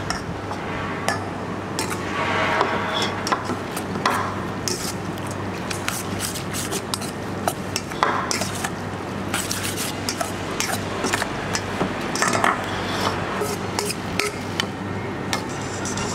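A metal spoon tosses and stirs wet glass noodle salad in a stainless steel bowl. Repeated clicks and scrapes of spoon on bowl sound over a steady low hum.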